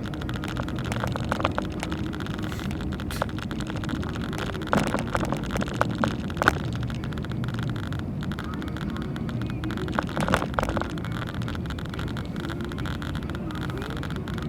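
Car being driven, heard from inside the cabin: a steady engine and road rumble, with a few short knocks and rattles about five to six seconds in and again around ten seconds.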